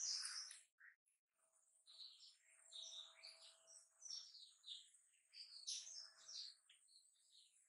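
Small birds chirping and twittering faintly in the background, many short notes, with a brief soft burst of noise right at the start.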